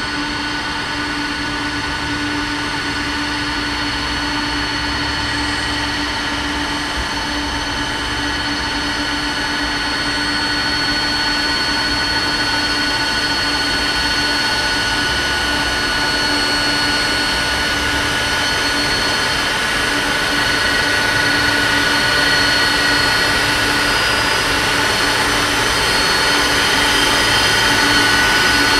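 Boeing 747-400F's four Pratt & Whitney PW4000 turbofans at low taxi power: a steady jet whine, several held tones over a rushing hiss. It grows gradually louder as the aircraft taxis closer.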